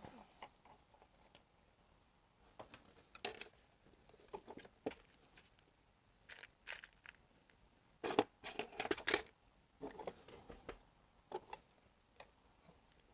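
Scattered light clicks and clinks of small metal tools and a ring being handled at a jeweler's bench, with a quick run of several clinks about eight seconds in.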